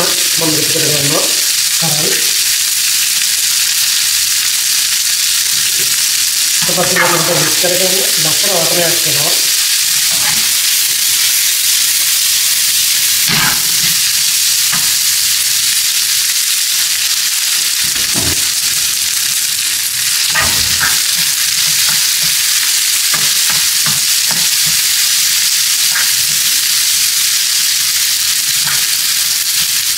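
Sliced onion, curry leaves, chilli and spices frying in oil in a pan, with a steady sizzle, stirred with a spatula that scrapes and knocks against the pan now and then.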